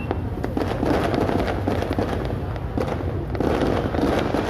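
Fireworks going off in a dense, continuous run of crackles and small bangs over a steady low rumble.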